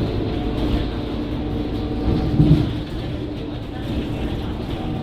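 Scania K230UB city bus's diesel engine and drivetrain running under way, heard from inside the cabin as a steady low rumble with a humming tone, with a brief louder surge about halfway through.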